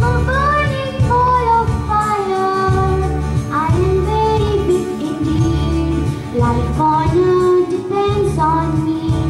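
A girl singing a melody over backing music with a pulsing bass.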